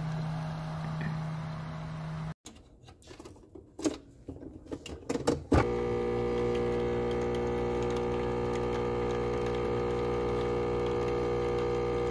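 Nespresso Vertuo coffee machine. A low steady hum to begin, then a few clicks and knocks as the machine is handled. About halfway in, its motor starts and runs with a steady, loud whirring hum as it brews.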